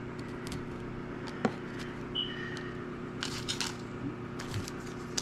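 Trading cards being handled and set down on a table: a few light clicks and a short rustle about three seconds in, over a faint steady hum.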